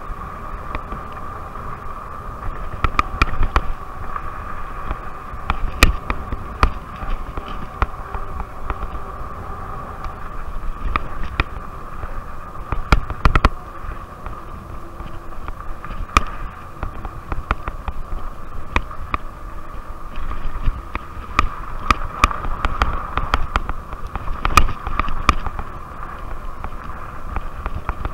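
Rad Rover fat-tire e-bike riding fast over a rough dirt trail: a steady whine from its 750-watt hub motor, with many sharp clicks and rattles as the bike jolts over the ground, and wind rumble on the microphone.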